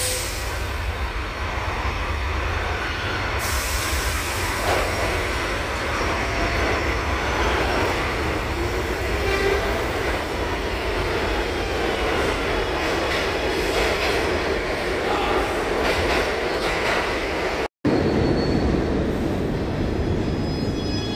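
Kawasaki R211T New York subway train running into a station along the platform, its wheels rumbling steadily on the rails with faint squeals. After a sudden dropout near the end, the train runs along another platform with a whine of several steady tones.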